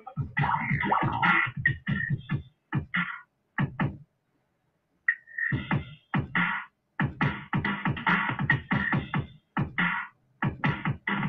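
Choppy electronic music full of stuttering, scratch-like cuts. It drops out completely for about a second near the middle, then comes back with a sharp high tone and carries on in short bursts.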